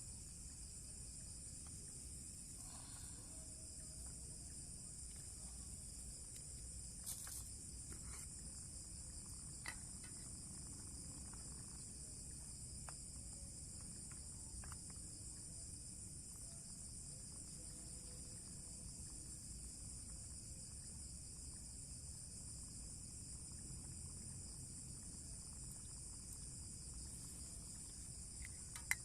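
Steady high-pitched insect chorus, a continuous shrill chirring, with a few faint clicks or taps here and there.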